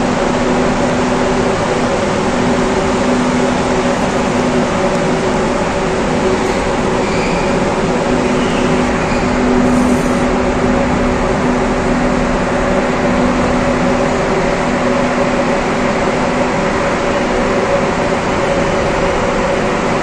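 Kruger commercial exhaust fan running steadily: a loud, even rush of air over a steady hum of several low tones.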